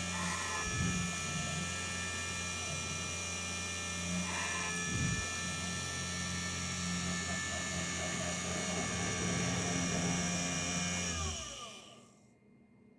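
Spindle motor of a 3018 desktop CNC machine running with a steady whine, its tone shifting briefly twice. About eleven seconds in it winds down, falling in pitch, and stops.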